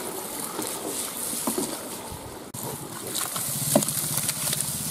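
Curry sizzling and bubbling in a large pan, stirred with a long iron ladle, with a wet, sloppy stir. Shortly before the end a heap of raw chicken hearts is tipped in, landing with a sharp wet slap.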